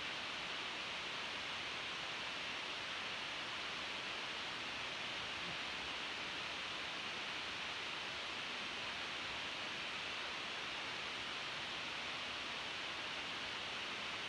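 Steady hiss of background noise, with no other sounds.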